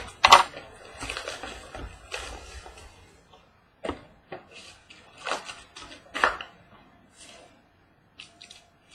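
A trading-card box being opened and handled: rustling of packaging, then a few separate sharp clicks and knocks from the box and cards.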